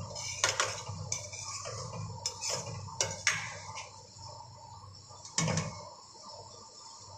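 Metal spoon scraping and knocking against a stainless steel kadai while stirring stuffed brinjals in masala, about half a dozen separate clanks and scrapes, the loudest about five and a half seconds in, over a steady high hiss.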